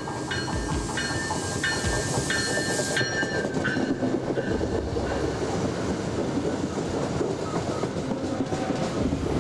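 An Amtrak train passing at high speed: a loud rushing rumble with wheels clacking on the rails that builds from about four seconds in. For the first three seconds a bell-like tone rings about twice a second.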